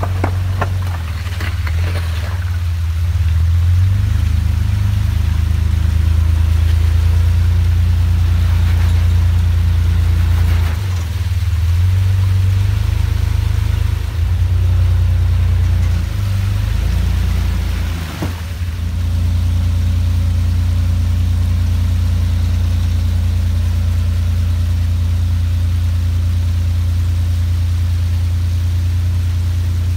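Lifted Jeep's engine running at low revs under light throttle as it crawls up a wet rock ledge. The throttle eases off briefly a few times, around 11, 16 and 18 seconds in, and a few knocks sound in the first couple of seconds.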